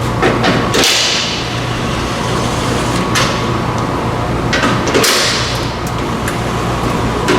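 Hand tool work on the underside of a car: scattered sharp metal clicks and two longer rasping passes, about a second in and about five seconds in, over a steady low hum.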